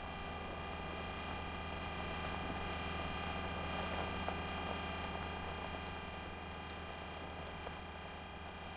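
Steady mechanical hum of the Curiosity rover's motors as the mast turns and the rover drives, a synthetic sound effect with scattered light clicks, swelling a little toward the middle and easing off near the end.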